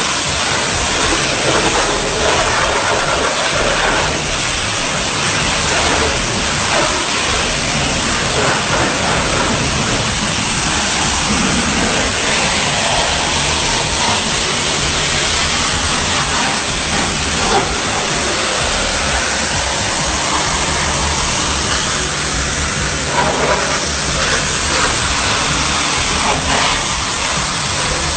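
High-pressure water spray blasting against a truck: a loud, steady hiss of rushing water, with a faint low machine hum under it.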